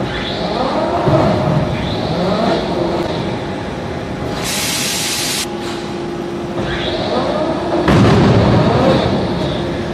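Automatic forging-line machinery: an industrial robot arm's servo motors whine in rising and falling glides as the arm swings, with a loud hiss lasting about a second midway and a heavy low rumble near the end, over a steady machine hum.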